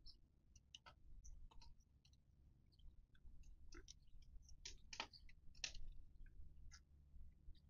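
Faint, irregular clicks and small crisp snaps of food being cut with a small knife and chewed, with the two loudest a little after five seconds in.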